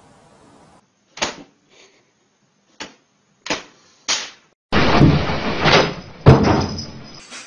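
Four separate knocks, then a loud rattling clatter about two and a half seconds long, with a sharp bang in the middle.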